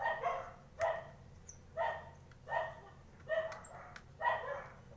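A dog barking repeatedly at an even pace, about six barks, one every second or so.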